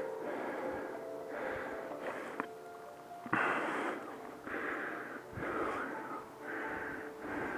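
A hiker's fast, rhythmic breathing close to the microphone, about one breath every two-thirds of a second. A sharp click comes a little over two seconds in, and a louder rush about three seconds in.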